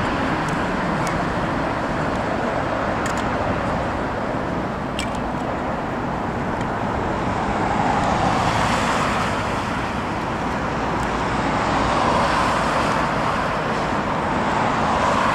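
Jet noise from a Boeing 757 airliner landing and rolling out along the runway, heard as a steady rushing noise that swells about halfway through and again near the end, mixed with passing road traffic.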